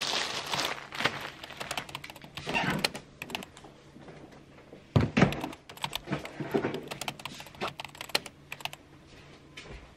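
Kitchen items being handled and set down on a stone countertop: a string of clicks and knocks, with one louder thud about five seconds in.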